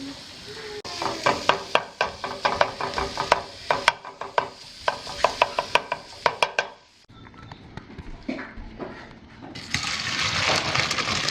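A utensil clicking and scraping quickly against a pan as food is stirred, over a faint steady hum. After a sudden break, minced garlic sizzles in hot oil, starting near the end.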